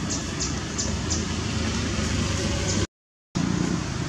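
Steady outdoor background noise with a low rumble and a few faint ticks, cut off by a half-second dropout to silence about three seconds in before it resumes.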